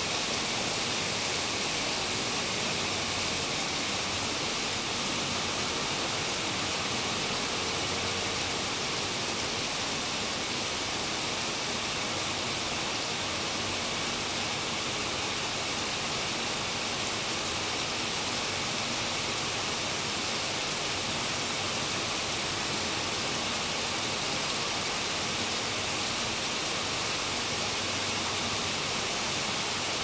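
Steady rain falling on pavement: an even, bright hiss with no separate drops or other events standing out.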